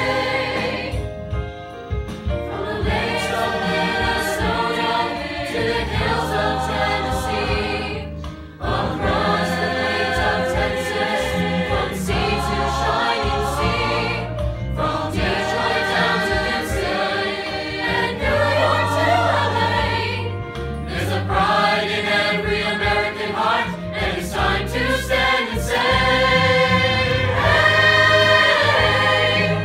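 A mixed choir of young male and female voices singing in harmony, in long held phrases with short breaks between them.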